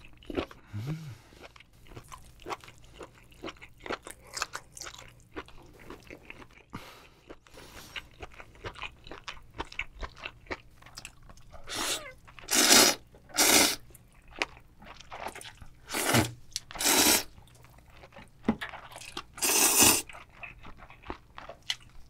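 Close-miked eating of cold spicy bibim-myeon noodles with turban shell meat. Soft wet chewing and mouth clicks come first, then from about halfway several loud slurps of noodles, each lasting about a second.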